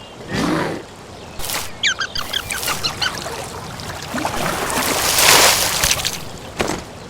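Bird calls: a run of short, quick chirps about two seconds in, with honking duck-like calls around them, and a loud rushing noise a little past the middle.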